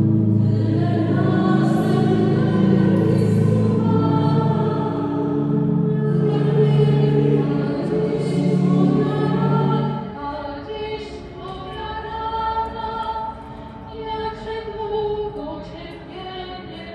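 A choir singing over sustained low accompanying notes. The low notes stop about ten seconds in, and the voices carry on more quietly.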